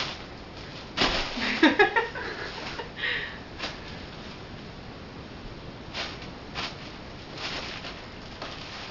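Bubble wrap being handled and stepped on: scattered crinkles and a few sharp pops, bunched together at about a second and a half in, then isolated ones later. A short squeal with a falling pitch joins the cluster of pops.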